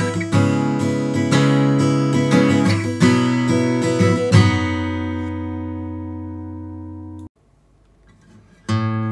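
Hsienmo Linglong acoustic guitar with a sinker redwood top and cocobolo back and sides, fingerpicked through a passage of plucked notes and chords. About four seconds in, a chord is left to ring and fade. It cuts off abruptly about seven seconds in, and after a moment of silence the playing starts again near the end.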